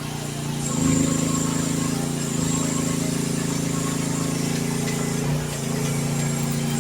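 Youtop YT15 mini excavator's engine running steadily, its note shifting in pitch a few times.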